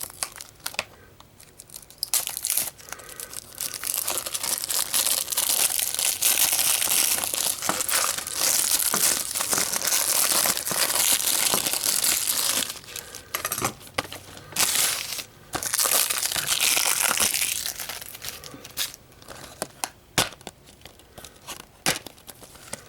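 Plastic shrink-wrap being torn and crumpled off a Blu-ray case: dense crinkling in two long stretches, then a few scattered crackles and clicks near the end.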